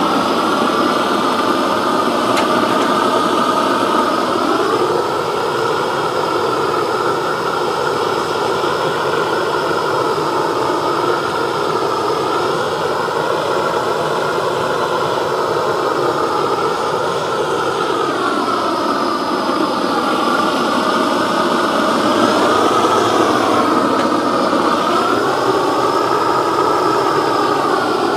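Blowtorch with a long wand burning with a loud, steady rushing hiss, its tone sliding slowly up and down a few times as the flame is swept over a carved wooden pumpkin to scorch and seal the wood and burn off fuzzy fibres.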